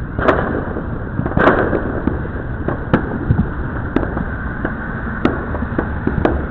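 Fireworks going off: a string of sharp bangs, about one a second, over a steady background din.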